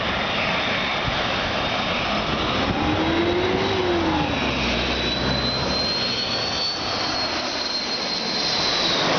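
Jet airliner passing low overhead on landing approach: steady engine noise with a high whine that rises and then falls in pitch as it goes by.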